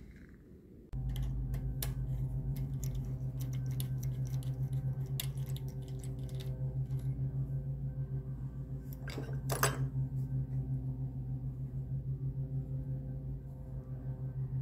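A steady low mechanical hum, slightly pulsing, switches on suddenly about a second in and keeps running. Light metallic clicks from small ignition parts being handled sound over it, with one louder clack just under ten seconds in.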